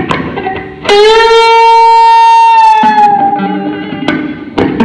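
Amplified Les Paul-style electric guitar playing a lead line: a short picked note, then about a second in a single note bent up and held with long sustain for nearly two seconds before easing down and fading, followed by a few shorter picked notes near the end.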